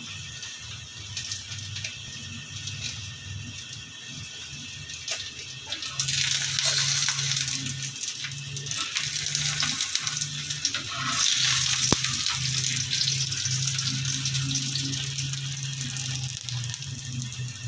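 Paratha frying in hot oil in a pan, sizzling and crackling, the sizzle getting louder about six seconds in, over a steady low hum.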